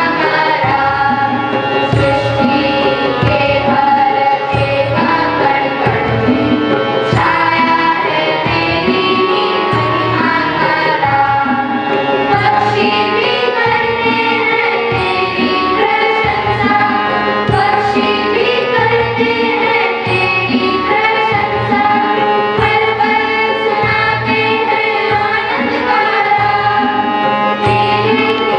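Choir of schoolchildren singing a song together, accompanied by harmonium, tabla and conga drums.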